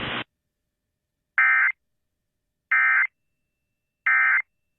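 Emergency Alert System end-of-message data tones: three identical short, buzzy bursts, each about a third of a second long and about a second apart, signalling that the weather warning has ended. The hiss of the radio broadcast cuts off just before them.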